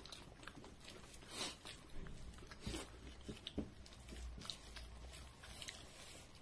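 Faint eating sounds: chewing, with scattered soft clicks of fingers and a spoon against plates of rice.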